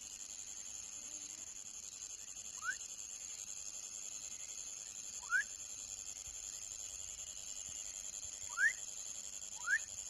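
Young frog calling: four short whistles, each sweeping quickly upward in pitch, a few seconds apart and closer together near the end. A steady high-pitched drone runs behind them.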